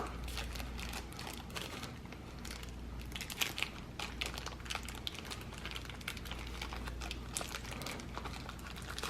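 Intermittent crinkling and rustling of plastic packaging with many small clicks, as cables and accessories are handled and unwrapped.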